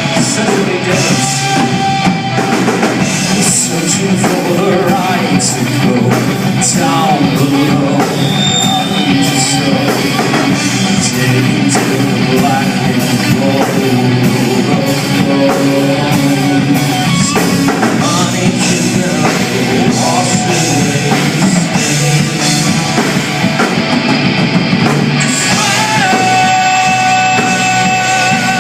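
Rock band playing live, with drum kit, amplified instruments and a voice singing; the recording carries little deep bass.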